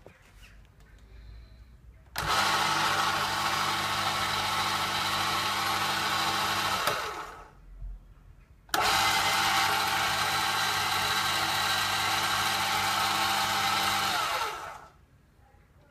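Emco Compact 5 lathe's electric motor and spindle drive running with a steady hum and whir. It is switched on suddenly about two seconds in, runs down and stops around seven seconds, is switched on again about a second and a half later, and stops once more near the end.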